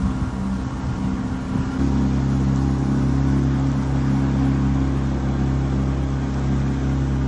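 Small open motorboat's engine running under way, with the wake churning behind. It is uneven for the first couple of seconds, then settles into a steady drone.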